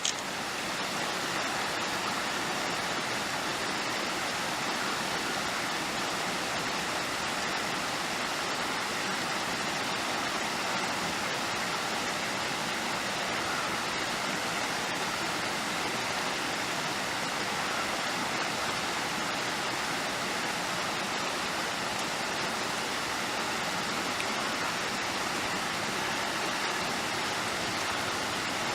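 A steady, even rushing noise that holds at the same level throughout, like falling or running water.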